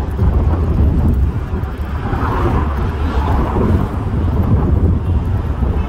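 Wind buffeting a phone's microphone in a loud, steady low rumble, over a wash of road traffic noise.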